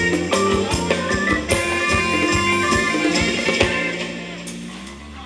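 Live band music for Thai ramwong dancing: a regular drum beat under held instrumental notes, which stops about three and a half seconds in, leaving a final held note that fades away as the song ends.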